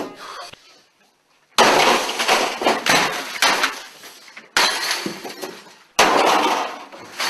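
Loud crashing and smashing in three long bursts, each starting abruptly, about a second and a half, four and a half and six seconds in: something being smashed and broken.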